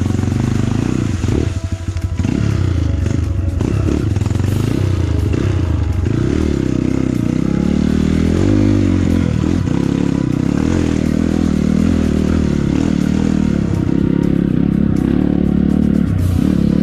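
Honda CRF150L trail bike's single-cylinder four-stroke engine running under changing throttle. It is eased off briefly about a second in, then pulls on with its pitch rising and falling. Scattered knocks and rattles come from the bike riding over rough ground.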